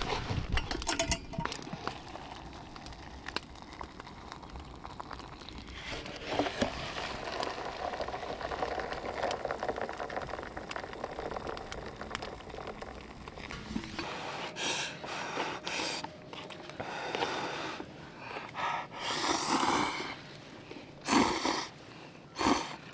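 Instant-noodle cups being prepared: a paper lid is peeled back, then hot water is poured from a kettle into a paper cup as a steady splashing trickle. Near the end there are short bursts of noodle slurping.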